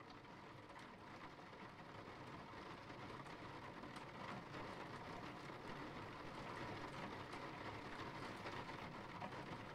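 Steady rain falling, an even hiss with faint scattered drop ticks, slowly getting louder.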